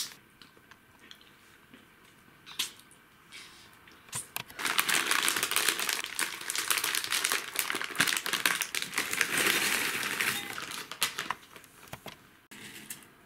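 Plastic snack packet being crinkled and handled: a few scattered crackles, then about six seconds of dense, loud crinkling from around four seconds in.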